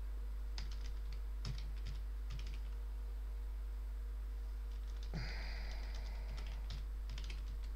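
Computer keyboard keys tapped in short irregular runs as a password is typed, with a brief breath-like hiss about five seconds in, over a steady low hum.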